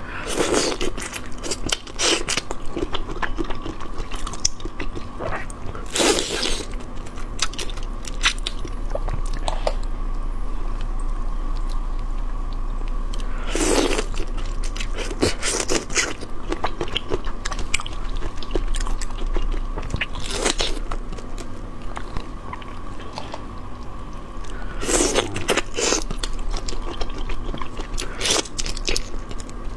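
Close-miked crunching and crackling of shrimp shells as marinated shrimp are peeled by hand and bitten, mixed with chewing. Louder sharp crackles come every few seconds over a faint steady tone.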